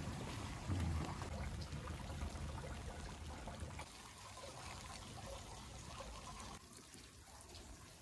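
Water trickling and dripping, with scattered small ticks of drops, louder at first and fading somewhat after about four seconds.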